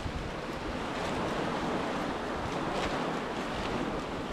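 Surf washing onto the beach with wind buffeting the microphone, and a plastic bag crinkling now and then as it is handled.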